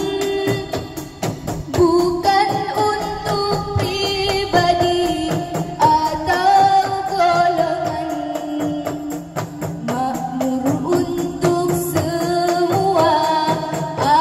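Women's zamrah group from Bawean singing a melody together over a steady beat of hand-held frame drums (rebana).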